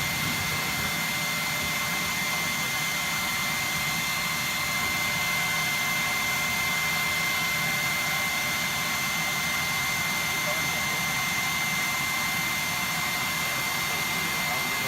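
A vacuum-type electric motor running steadily with a high, constant whine and a rushing hiss, unchanged throughout.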